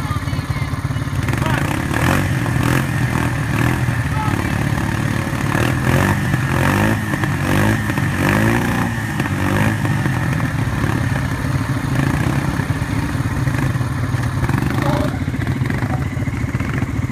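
ATV engine running under load as the four-wheeler churns through deep muddy water, its engine speed rising and falling, with splashing and indistinct voices.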